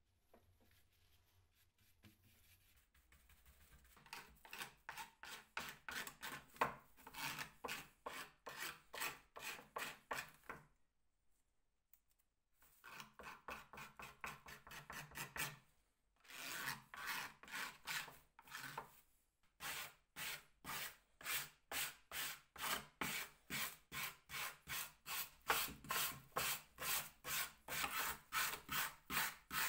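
Wood being abraded by hand in quick, regular back-and-forth scraping strokes, about two to three a second, with two short pauses.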